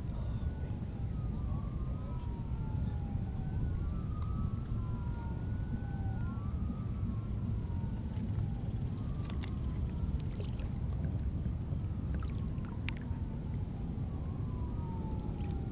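A distant emergency siren wails slowly up and down, faint under a low, steady rumble of wind and water noise on a camera mounted low on a kayak. A few light clicks come in the second half.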